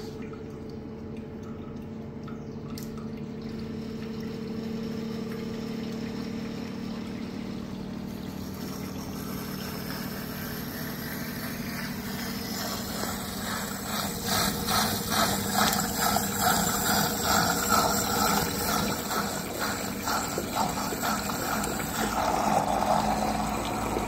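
LG front-loading washer-dryer's drain pump humming, then water rushing and gurgling through it as the machine drains, growing louder and more uneven from about fourteen seconds in.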